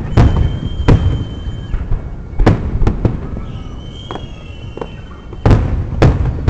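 Aerial fireworks bursting: about six sharp bangs at uneven intervals, two of them coming in quick pairs, over a constant low rumble.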